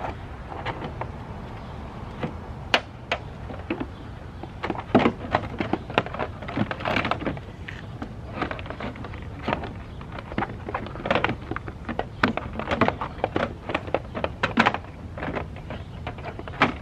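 Plastic trim covers being worked back into place over the hardtop brackets behind the seats of a Honda S2000: irregular clicks, knocks and short scrapes of plastic parts being pushed and fitted together.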